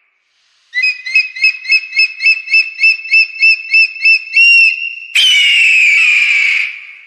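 Whistle sound effects: about a dozen short whistle pips, roughly four a second, then a brief held note, then a loud breathy whistle that falls in pitch and fades.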